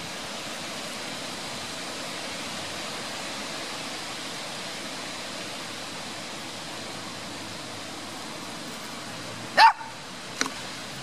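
A small dog barks once, short and sharp, near the end, over a steady outdoor hiss.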